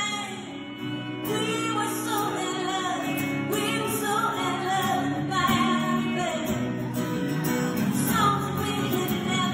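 A woman singing a country song live, accompanying herself on a strummed acoustic guitar.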